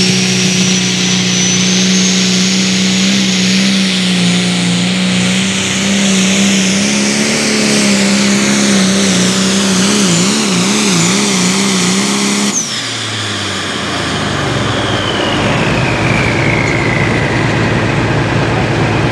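John Deere pulling tractor's turbocharged diesel engine running at full throttle under load, with a high turbo whine above the engine note; the engine pitch wavers rapidly for a second or two. About two-thirds of the way through the engine note drops and the turbo whistle falls steadily as the tractor comes off the throttle at the end of its pull.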